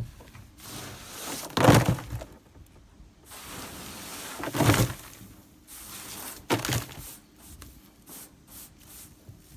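Three heavy thuds a few seconds apart, with lighter knocks and rubbing noise between them.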